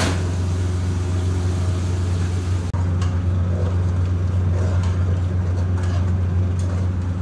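Steady low hum of commercial kitchen equipment, with light metal scrapes and taps of a ladle stirring in an aluminium pot from about three seconds in.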